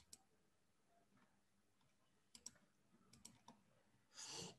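Near silence with a few faint, scattered clicks and a brief soft hiss near the end.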